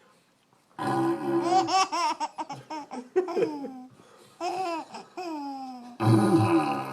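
A young child laughing hard in several long runs of giggles, the loudest starting near the end.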